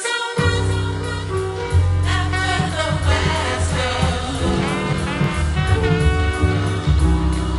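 Hip-hop instrumental music with a heavy bass line and a singing voice over it, no rapping; the bass drops out for a moment right at the start.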